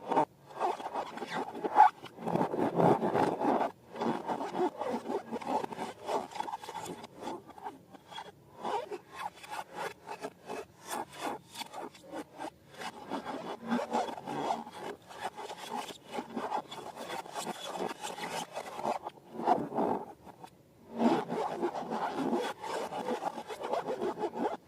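Slime being mixed and worked by hand: rapid rubbing and scraping strokes with sticky clicks, coming in several spells with short breaks.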